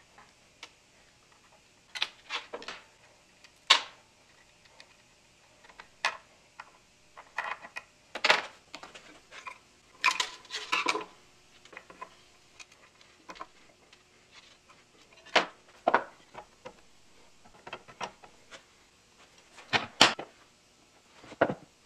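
Irregular metallic clicks, taps and short scrapes of a screwdriver and small tools against the ignition parts and small metal fittings of an antique engine, with a run of scraping about ten seconds in and the loudest clicks near the end.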